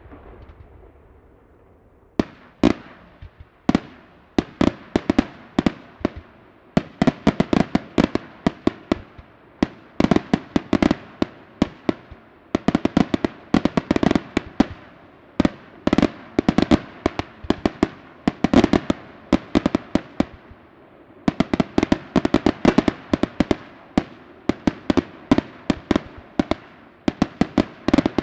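Aerial firework shells bursting in rapid, dense volleys of sharp bangs, several a second, starting about two seconds in after a short lull.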